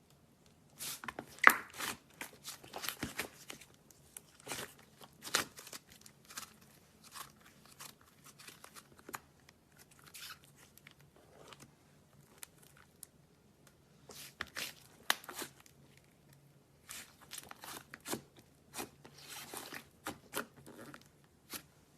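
Slime being squished and worked by hand, giving irregular crackling clicks and snaps, the loudest about one and a half seconds in, with quieter pauses between bouts.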